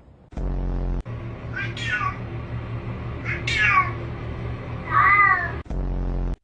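A domestic cat meowing three times: high calls that slide down in pitch, the last one rising then falling. A steady low hum runs underneath.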